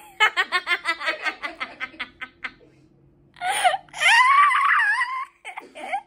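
A woman laughing hard in a rapid run of short, breathy bursts that trail off about two and a half seconds in, then, after a brief pause, a long high-pitched squeal of laughter with wavering pitch.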